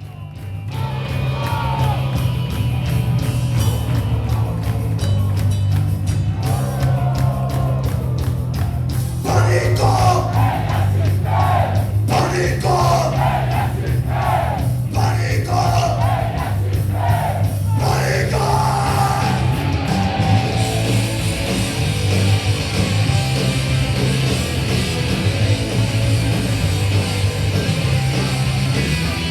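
Loud, heavily distorted rock music with a pulsing bass line, and shouted vocals from about ten seconds in for roughly eight seconds.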